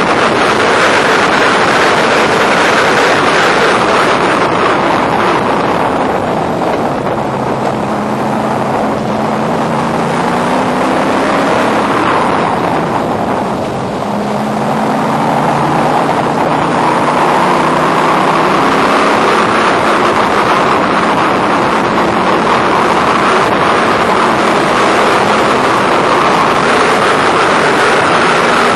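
Onboard sound of a Factory Five Racing roadster's V8 engine running hard at race speed, buried in heavy wind rush on the microphone of the open cockpit. Around 13–14 seconds in the engine note drops and the level dips briefly, then it builds back up as the car accelerates out of the corner.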